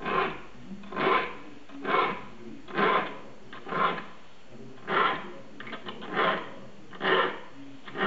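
A small saw file stroked across the teeth of a Japanese handsaw (nokogiri) being sharpened, one short rasping stroke about every second with brief pauses between.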